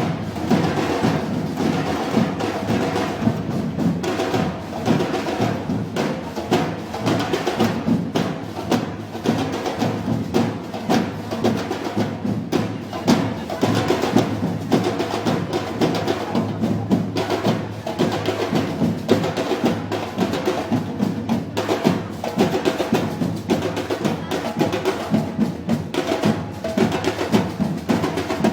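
Live festival band music driven by a steady beat of drums and percussion, with sustained pitched notes beneath.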